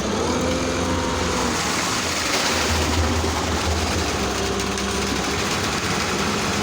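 Concrete mixer truck running while it discharges concrete into the pile: a steady diesel engine hum with a few held whining tones over a rushing noise.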